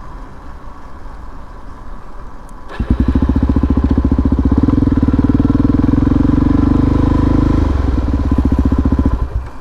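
Motorcycle rolling with its engine off, then about three seconds in the Harley-Davidson Dyna's V-twin starts and runs loud with an even, rapid exhaust pulse for about six seconds, easing a little before dropping away near the end.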